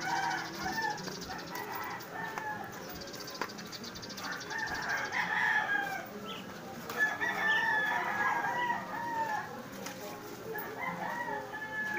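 Roosters crowing: several long calls one after another, loudest from about four to nine seconds in.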